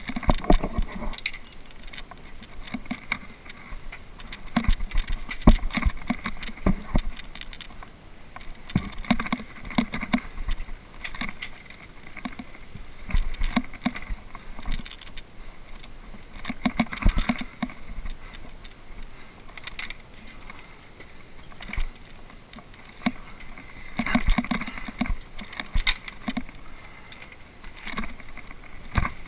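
Scrambling noise from a climber on a chained granite route, picked up by a head-mounted action camera: gloves and boots scraping and knocking on rock, with rustles and bumps coming in irregular clusters every few seconds.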